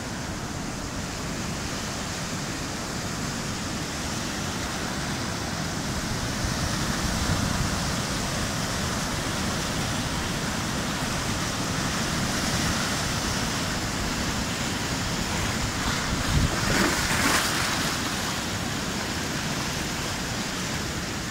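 Ocean surf washing over and around low rocks and through shallow rock channels, a steady rushing wash with one louder surge about three-quarters of the way through. Low wind rumble on the microphone runs underneath.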